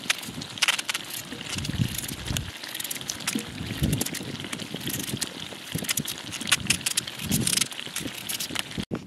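Knife cutting through a raw potato held in the hand: repeated crisp cuts at an uneven pace, with pieces dropping into a pot of stew.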